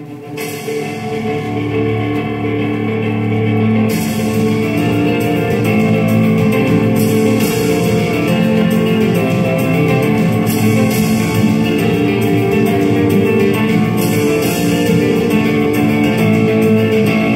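Instrumental music with no singing, coming in and building to full volume over the first two seconds or so, then playing on steadily.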